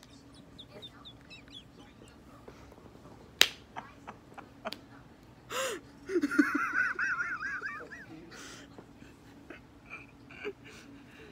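A sharp click, then a short run of high-pitched, warbling, squeaky laughter lasting about two seconds.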